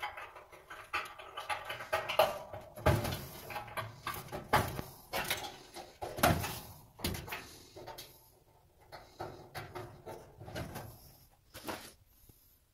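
Irregular clicks, taps and light scrapes of metal being handled as wire spade connectors are pushed onto the terminals of a new dryer heating element assembly. They are busiest in the first several seconds and sparser near the end.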